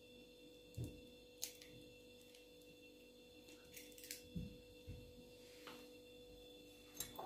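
Near silence: room tone with a steady faint hum and a few soft taps and clicks.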